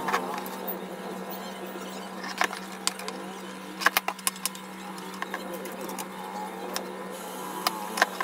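Scattered clicks and knocks of hands handling wires and the metal amplifier cabinet and front panel during assembly, over a steady low hum.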